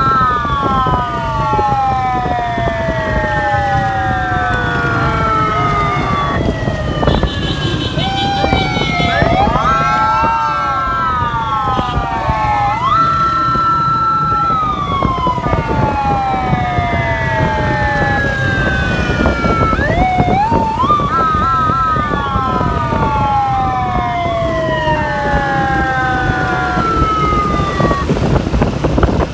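Several police motorcycle sirens sounding together in overlapping wails that rise sharply and fall away slowly, with some held tones and a fast warbling yelp about twenty seconds in. Under them runs the steady noise of the motorcycles' engines and wind.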